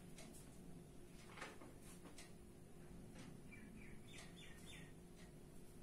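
Near silence with faint room tone and a few light clicks. About three and a half seconds in, a faint bird gives a quick run of about six short, falling chirps.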